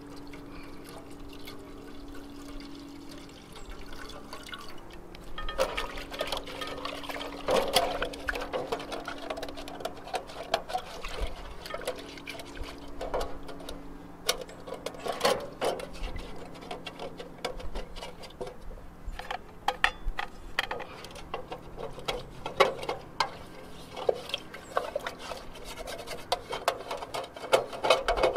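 Hand-washing a metal camp pot: water splashing and dripping, with the pot clanking and being scrubbed. Quiet for the first few seconds, then a busy run of clatter and splashing.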